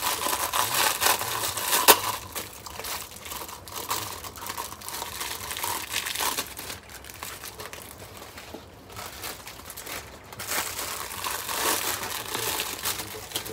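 Rustling and crinkling of currant bush leaves being picked by hand. It is busiest in the first two seconds and again near the end, with a sharp crack about two seconds in.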